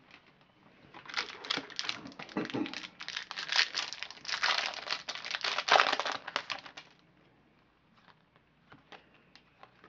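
Foil trading-card pack wrapper crinkling as it is handled and opened, in dense crackling for several seconds, followed by a few faint clicks of cards being handled.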